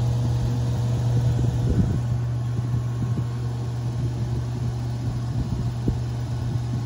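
1953 Fedders Weather Bureau window air conditioner's blower motor running with a steady hum, with the compressor cycled off. Light, irregular clattering comes through it from a small piece of the air filter that has been sucked into the blower.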